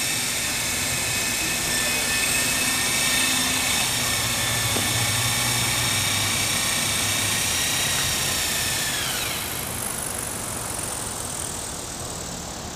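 Small autonomous research helicopter's engine and rotor running with a steady high whine. About nine seconds in, the whine drops in pitch and fades as it spools down.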